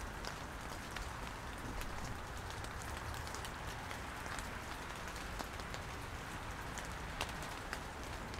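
Steady light rain with a soft hiss, and scattered individual drops ticking sharply here and there.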